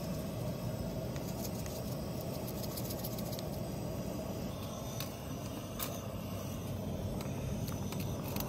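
Portable gas camp stove burner running steadily under a cooking pot: a low, even rushing, with a few faint clicks about five to six seconds in.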